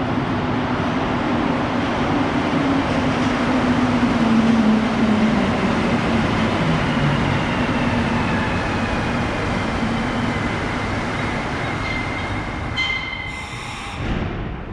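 Montreal Metro train pulling into the station, its motor whine sliding down in pitch as it slows and the rolling noise fading. A short hiss with high tones comes near the end.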